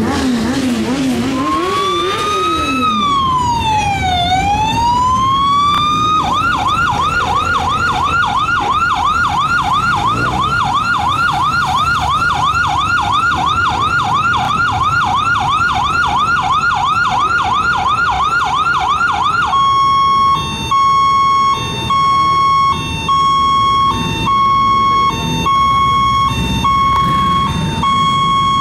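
Electronic siren running through its patterns: a slow wail rising and falling, then a fast yelp of about three sweeps a second, then from about two-thirds through a steady tone broken by short gaps. Motorcycle engines run low underneath.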